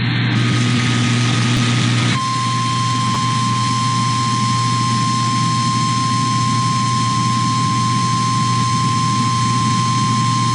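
Emergency alert attention signal for a tornado warning: after about two seconds of hiss, a single steady high alarm tone starts and holds without a break, the one-pitch warning tone of NOAA Weather Radio alerts. A constant low rumbling noise runs under it.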